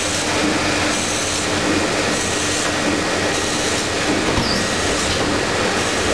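Roland 900 sheetfed offset press running with a Foiltone foil-transfer unit: steady machine noise with a low hum and a high hiss that pulses about once a second.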